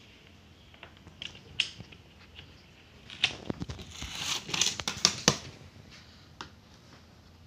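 Screwdriver and plastic parts of a Dell Inspiron laptop's underside clicking and scraping as the case is worked open. There are scattered single clicks, then a busier run of clicks and scraping about three to five seconds in.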